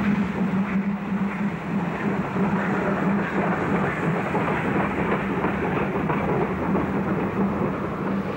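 A train running along the track: a steady rumble with the clickety-clack of wheels over the rail joints and a constant low hum underneath.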